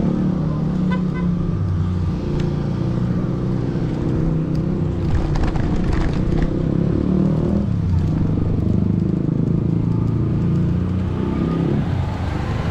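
A motor vehicle's engine running close by, its pitch shifting up and down, with a few light clicks around the middle.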